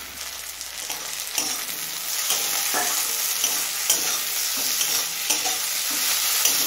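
Tomato pieces and onions sizzling in hot mustard oil in a metal kadai, with a metal spatula scraping and clicking against the pan as they are stirred. The sizzle grows louder over the first two seconds and then holds steady, with irregular spatula clicks.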